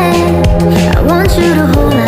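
Background music: a pop song with a steady beat and a gliding vocal-like melody.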